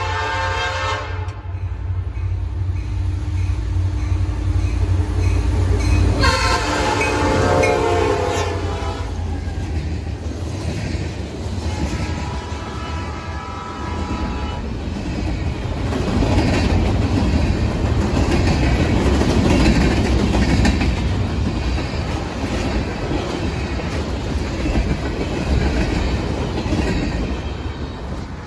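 Diesel freight train sounding its multi-tone horn in long blasts as it approaches: one at the start, a second about six seconds in, and a fainter one around twelve seconds, over the low rumble of the locomotives. It then passes close by, and the covered hopper cars rumble and clatter over the rails, fading near the end.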